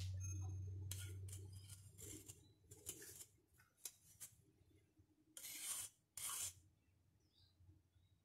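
A spoon scraping against the sides of a small saucepan of melted dark chocolate, in a series of short, faint scrapes, the two longest about five and a half and six seconds in.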